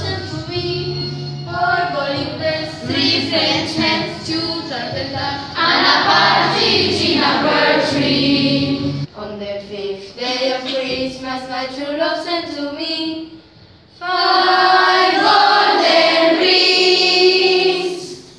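A group of children singing together in chorus. The singing breaks off abruptly about nine seconds in and a second group of young voices takes up the song, dipping briefly near fourteen seconds before coming back louder.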